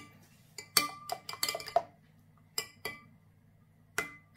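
Metal spoon clinking against a ceramic dish while stirring a thick liquid marinade: scattered ringing clinks, a quick cluster about a second in, two more just before three seconds, and a single clink near the end.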